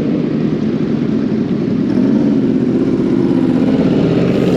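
Sport motorcycle engines running at a steady idle, loud and close.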